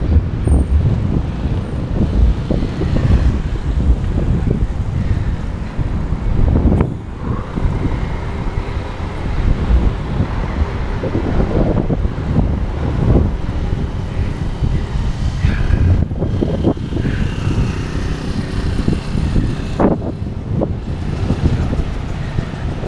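Steady wind rumble on the microphone of a moving bicycle, with road traffic passing alongside.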